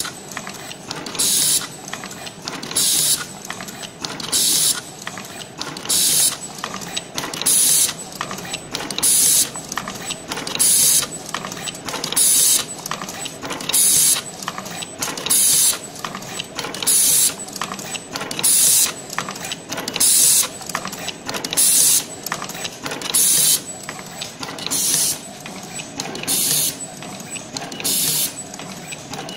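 Fully automatic single-head terminal crimping machine running its cycle, crimping insulated fork terminals onto red wire. It finishes a lead about every one and a half seconds: clicks and mechanical clatter, each cycle marked by a short, sharp hiss of air from its pneumatic cylinders.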